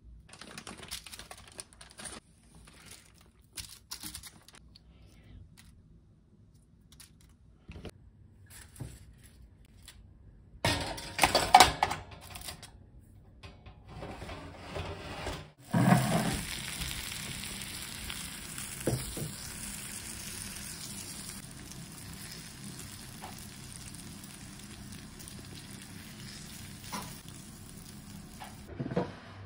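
Light clicks and rustles of hands working over a foil-lined baking tray, with two loud crinkling bursts about eleven seconds in. About sixteen seconds in a sudden thump is followed by a steady hiss that slowly fades.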